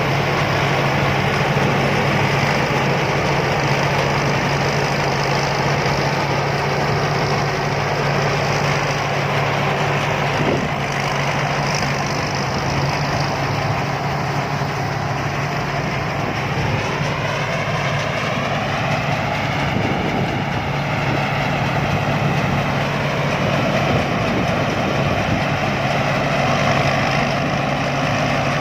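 Rice combine harvester's diesel engine running steadily under a constant low hum. About halfway through, a higher whine rises in pitch and then holds steady.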